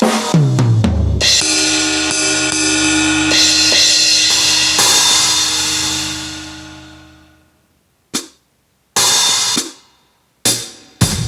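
Aroma TDX-15S electronic drum kit: a quick fill of strikes falling in pitch from high to low drums, then a cymbal crash that rings for several seconds and fades out. After a pause, a couple of single hits, and a fast run of drum strikes starts near the end.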